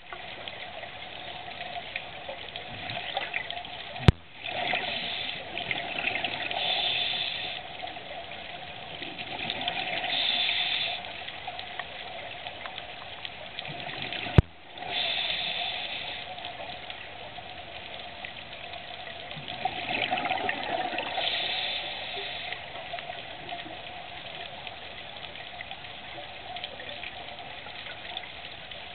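Scuba regulator breathing heard underwater: four bursts of bubbling exhaled air about five seconds apart, over a steady hum. Two sharp clicks come about four and fourteen seconds in.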